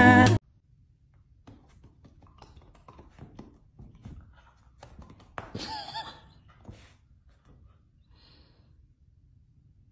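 Music cuts off abruptly, then faint room sounds: scattered soft thumps and rustles, with a brief quiet voice-like sound about halfway through.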